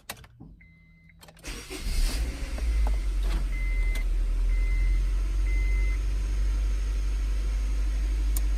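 Honda CR-V's B20B four-cylinder engine starting about a second and a half in, then running at a steady idle with no misfire on new spark plugs and plug wires. Short high electronic beeps sound once before the start and three times after it.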